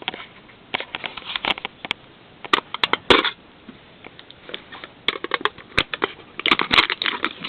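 Packaging being worked open by hand, crinkling and crackling in irregular runs of sharp clicks that are busiest near the end.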